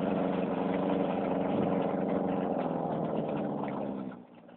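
Small engine driving a paddle-wheel pontoon boat, running steadily, then dropping sharply to a much lower level about four seconds in.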